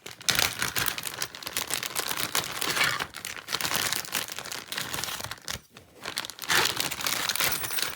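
Plastic packaging rustling and crinkling while a small part is dug out of it by hand, with a short lull about two-thirds of the way through.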